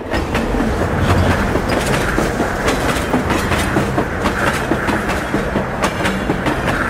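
Freight train of tarp-covered wagons rolling past, its wheels clattering and clicking irregularly over the rails with a steady rumble.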